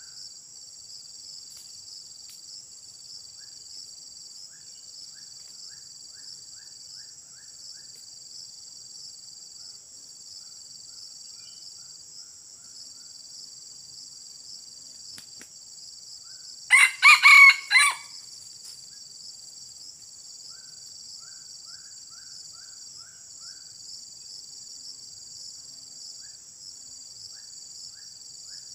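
Red junglefowl rooster giving one short crow about two-thirds of the way through, clipped into a few quick syllables. A steady high insect drone runs underneath, with runs of short, evenly repeated chirps.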